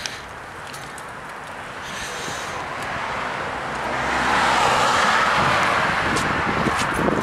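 Road traffic passing on the street: a steady rush of tyre and road noise that swells up over a couple of seconds and stays loud.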